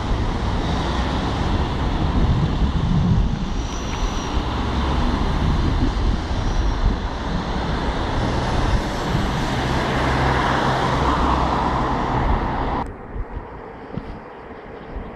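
City road traffic: cars driving past with engine and tyre noise, cutting off abruptly near the end to a much quieter background.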